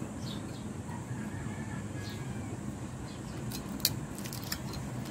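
A metal fork clicking and scraping against a ceramic plate while breaking into crispy bacon: a quick cluster of sharp clicks past the middle, the loudest just before four seconds in, over a steady low background rumble.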